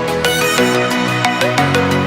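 Electronic background music with a steady beat and a synth melody.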